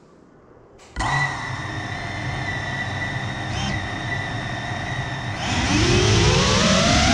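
GEPRC CineLog35 cinewhoop's four brushless motors and ducted propellers spinning up suddenly about a second in and running at a steady idle whine. Near the end the pitch rises and the sound grows louder as the throttle comes up for takeoff.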